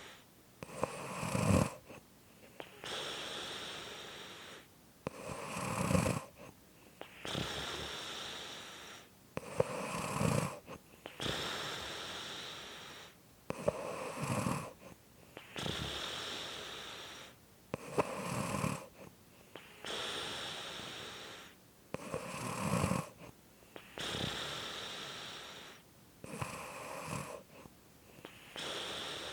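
Steady snoring. A short, loud rattling snore is followed by a longer, quieter breathy stretch, and the pair repeats evenly about once every four seconds.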